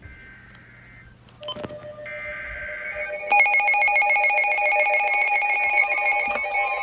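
NOAA weather radio sounding a flash flood warning: two faint one-second bursts of the two-tone digital alert header, then a bit over three seconds in the radio's alert alarm starts, a loud, rapidly pulsing electronic tone.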